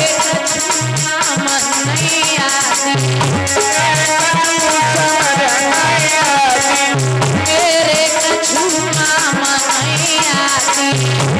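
Loud bhajan folk music: a steady drum beat and quick high percussion strokes under a wavering melodic line.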